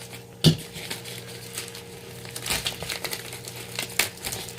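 Parcel packaging being handled and crinkled, with irregular crackles, opening with one sharp knock about half a second in.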